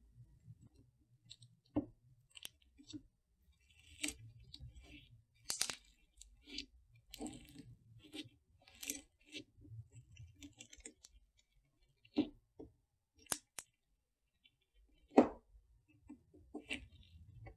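Fingers pressing and poking glitter clay slime in a plastic tub, giving irregular sticky clicks and small crackling pops, with one sharper, louder pop near the end.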